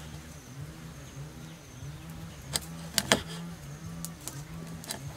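Steel cleaver chopping an eel into chunks on a wooden chopping board: a few sharp knocks, the loudest pair about three seconds in. Under it runs a low, steady hum that comes and goes in short stretches.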